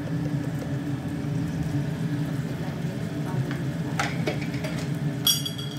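Chicken pieces cooking in a steel pot on the stove, a faint sizzle under a steady low hum, with one sharp clink of a metal spoon about four seconds in.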